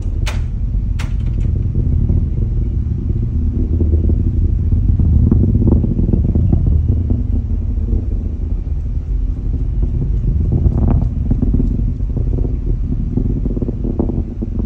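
Distant rocket launch rumble: a deep, rough, uneven rumble that swells and fades. Two sharp clicks come in the first second.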